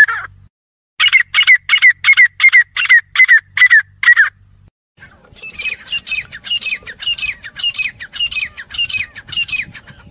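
Grey francolins calling: a shrill note, then a fast run of repeated notes at about three a second from about one to four seconds in. After a short gap, a longer, higher-pitched run of notes starts at about five and a half seconds in.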